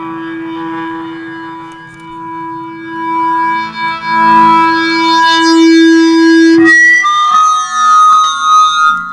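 Electric guitar played through a Roland Cube 20X practice amp: one long sustained note swells in loudness, then about seven seconds in gives way to higher, wavering notes.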